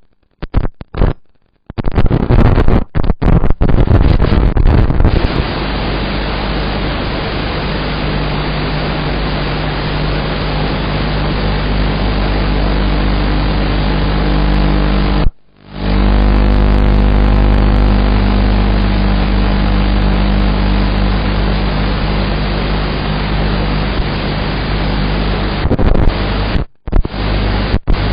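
Harsh, steady static-like noise with a low hum under it, typical of a poor FPV flight recording. It cuts out in short gaps several times in the first few seconds, once about halfway through and again near the end.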